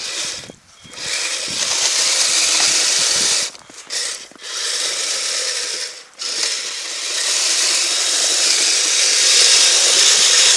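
Kyosho Blizzard FR radio-controlled snowcat's electric drive and gearbox running its tracks in several bursts, with short stops between, as the throttle is worked on and off.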